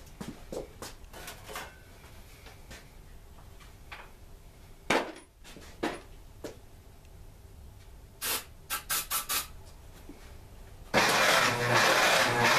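Scattered clicks and knocks, a quick run of short noisy bursts, then about eleven seconds in the Case 1816 skid steer's engine starts and runs loud with its muffler off, fed on starting fluid.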